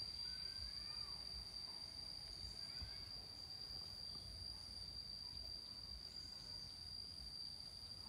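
Insects trilling in one steady, unbroken high-pitched tone, with a few faint short rising chirps in the first few seconds.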